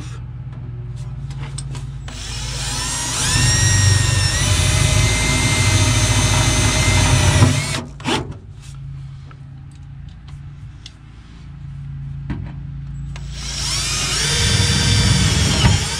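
Milwaukee M18 cordless drill driving self-tapping sheet-metal screws through a round plug into a steel car floor pan. The motor whines, picks up speed and holds steady for about five seconds. After a pause with a couple of clicks, it runs again for the last few seconds.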